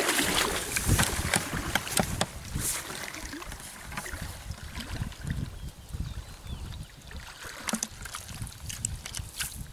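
Wet, weighted cast net handled on grass. It is set down with a thump about a second in, then gives scattered clicks and rustles as fish are picked out of the mesh.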